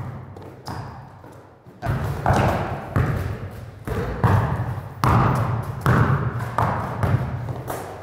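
Basketballs bouncing on a hard sport-court floor in a large echoing gym: a string of thuds, about one a second, each with a short ringing echo.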